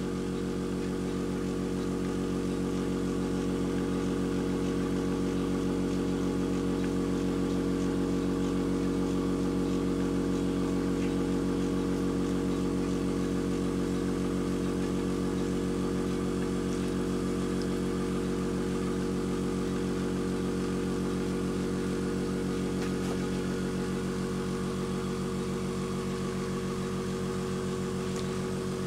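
Small air compressor running with a steady hum, feeding a wooden UGears pneumatic engine kit that runs only just. Much of the air leaks past the kit's main piston and piston valve.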